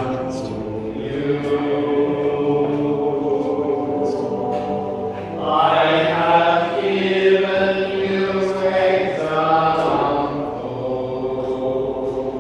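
Slow, chant-like hymn singing with long held notes, swelling louder about halfway through.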